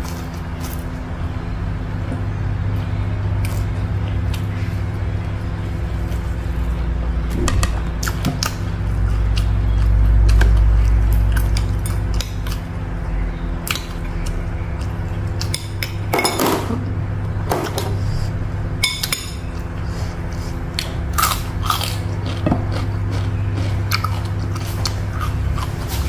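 A person chewing and biting food close to the microphone, with wet chewing and scattered short crunches and clicks, the loudest cluster about sixteen seconds in. A steady low hum runs underneath.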